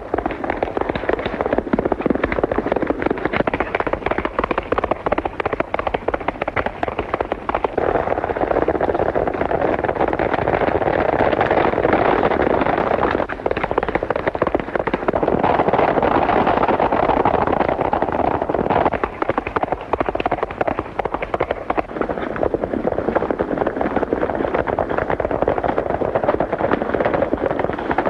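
A group of horses galloping: a dense, rapid clatter of hoofbeats that swells and eases as the riders pass.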